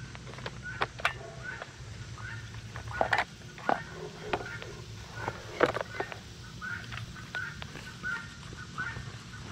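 Chickens clucking: a run of short clucks about twice a second, with a few louder, sharper notes among them.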